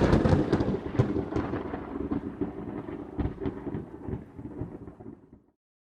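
Thunder: a loud clap with sharp crackles, rolling and fading away over about five seconds, then cutting off suddenly.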